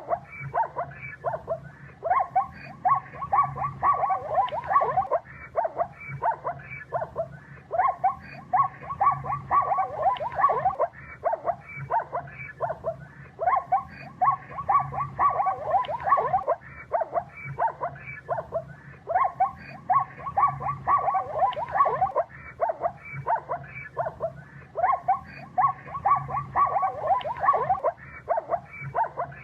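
Animal calls: a fast string of short cries with a louder burst about every six seconds, the same stretch repeating over and over as a loop.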